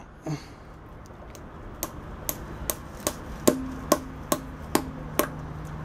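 Small hammer tapping a nail into a car tyre's tread to puncture it: about ten light, sharp strikes at a steady pace of two to three a second, beginning about a second in. The later strikes leave a short low ring.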